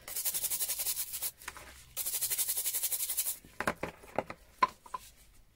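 Stiff scrubbing brush scrubbing small rusty wrenches in a plastic bowl of wet Deox-C rust-remover solution, in two quick bursts of rapid strokes, each a little over a second long. After that come a few light clinks and clicks of the metal wrenches being handled in the bowl, one sharp click the loudest.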